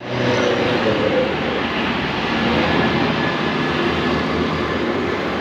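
Road traffic: a large vehicle's engine running steadily close by, with no horn sounding.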